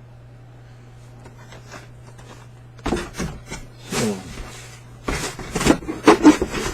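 Boxed action figures and packaging being handled and set into a box: a run of knocks, scrapes and rustles starting about three seconds in, over a steady low hum.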